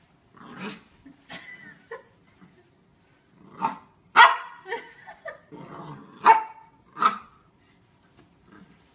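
Corgi puppy giving a string of short barks and yips, about eight in all, the loudest about four and six seconds in.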